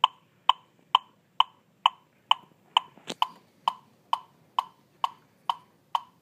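Seiko quartz electronic metronome clicking a steady beat of about two clicks a second, setting the tempo before the pianos come in.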